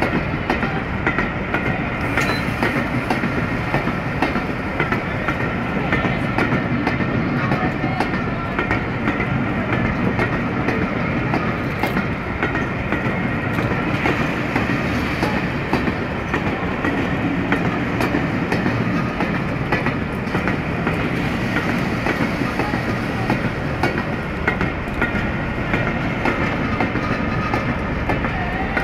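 Train of locomotive-hauled passenger coaches rolling steadily past, wheels clicking over the rail joints, with the steady rumble of the hauling diesel locomotives.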